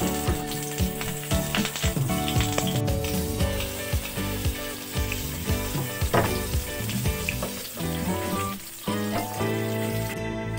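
Red hotdog sausages sizzling as they fry in hot oil in a frying pan, with short clicks of metal tongs against the pan as they are turned. The sizzle cuts off near the end.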